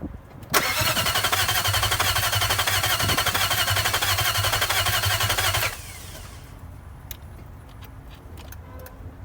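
Nissan VK45DE 4.5-litre V8 cranking on the starter for about five seconds without catching, then the starter cuts off suddenly. It is a no-start: the engine turns over but won't fire, and the owner hears no fuel pump come on at key-on.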